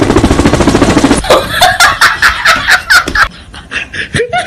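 A fast rattling burst, then a quick run of high-pitched laughter, about five 'ha's a second, that stops a little after three seconds in.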